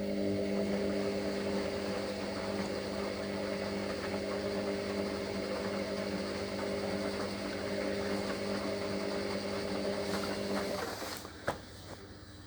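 Washer dryer drain pump running with a steady hum for about eleven seconds, pumping the water out straight after the machine stops filling, then cutting off, followed by a single click.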